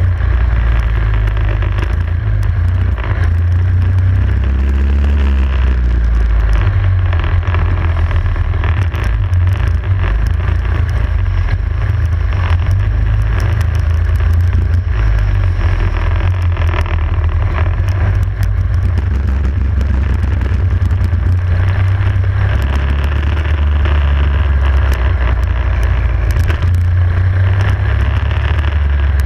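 Racing kart engine running hard, heard close up from on board the kart, its revs rising and falling as it laps the circuit.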